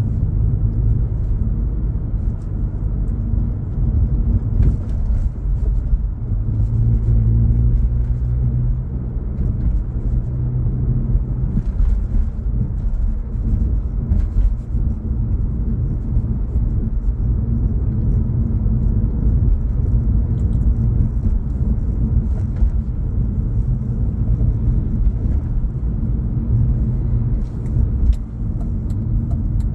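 Steady low rumble of a car driving along city streets, engine and tyre noise heard from inside the cabin, with a few faint clicks here and there.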